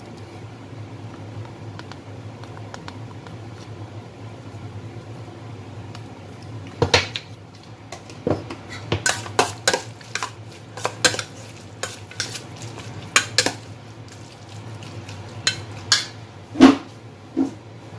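A metal spoon clinking and scraping against a stainless-steel mixing bowl while stirring marinated pork, an irregular run of sharp knocks starting about seven seconds in, over a low steady hum.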